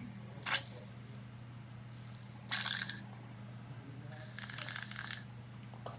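Aerosol shaving cream spraying from a can with a hiss lasting about a second, about four seconds in. Two short handling noises come before it.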